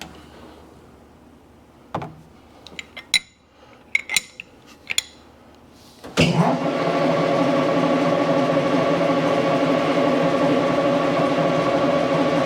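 Several metal-on-metal clicks and clinks of tools being handled, then about six seconds in a metal lathe's motor switches on and runs steadily with an even hum, ready to chamfer the drilled hole.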